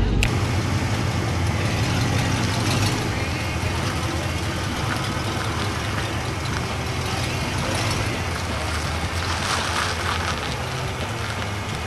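1970 Buick LeSabre's V8 with a four-barrel carburettor running at low revs as the car pulls out and rolls slowly through a turn, fading slightly as it moves away.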